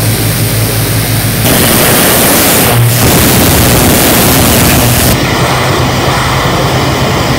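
Pressure-washer lance blasting a high-pressure water jet onto concrete: a loud, steady hiss of spray over a steady engine hum. The spray gets louder about a second and a half in and eases off again near the five-second mark.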